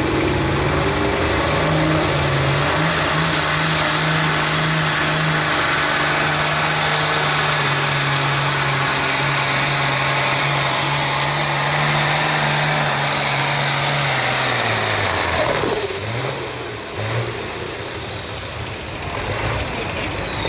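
International Harvester 1066 pulling tractor's turbocharged diesel running flat out under load on a sled pull, with a turbo whistle rising as it spools up in the first few seconds. About fifteen seconds in the engine comes off the throttle and its pitch drops sharply, and the turbo whistle then winds down slowly.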